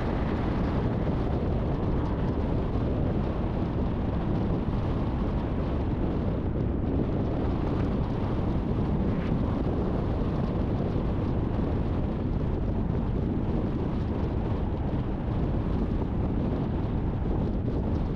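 Storm wind on the microphone: a steady, deep rush of noise with no separate events, played back at double speed.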